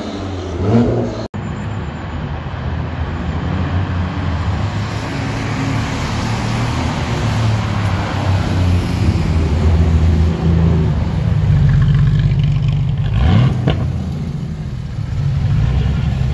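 Sports-car engines driving past at low speed: a Nissan GT-R's twin-turbo V6 pulling away, then after an abrupt cut about a second in, a slow convoy of Porsche 911s, led by a 911 GT3 RS, passing with their flat-six engines running at low revs. About three-quarters of the way through, one engine revs briefly in a quick rise in pitch.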